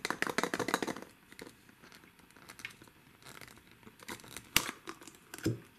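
A plastic nesting-cup figure being twisted and pulled apart by hand: a quick run of small plastic clicks and rubbing, then scattered clicks with a couple of sharper snaps near the end.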